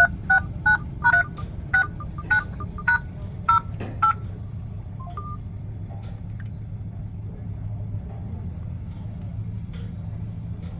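DTMF keypad tones of a phone dialing a number: about ten quick two-tone beeps, roughly three a second, that stop about four seconds in. A steady low hum and a few faint clicks follow.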